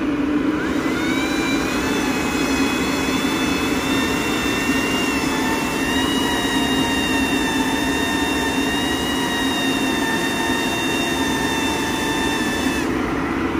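AC Infinity 8-inch inline duct fan, fed through a 6-inch reducer, running at a high speed setting with a steady rush of air from its outlet. A high whine rises in about a second in, holds steady, and cuts off near the end.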